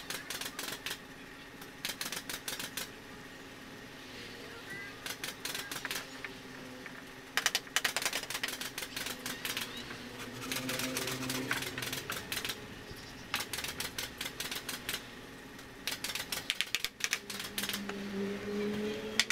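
Bamboo slats clattering against a bamboo bench frame as they are laid and shifted into place: short bursts of rapid clicking and rattling, each about a second long, repeated several times. A faint steady low hum runs underneath.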